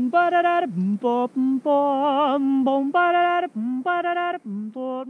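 A single voice singing a wordless melody of short and held notes, with one longer note wavering in vibrato about two seconds in.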